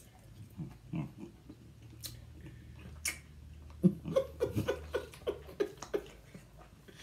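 A person chewing chewy candy, with soft mouth clicks. About four seconds in come a series of short hummed "mm" sounds.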